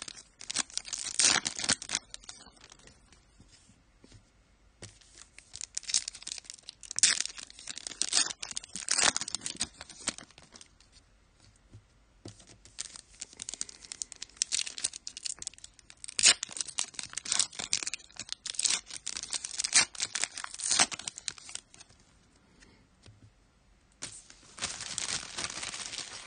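Trading card pack wrappers being torn open and crinkled by hand, in several bouts of tearing and rustling separated by short pauses.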